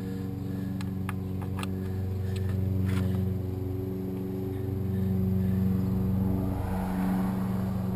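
A steady, low, engine-like mechanical hum, with a few light clicks of a screwdriver working at a seized Phillips screw in the fiberglass body during the first few seconds.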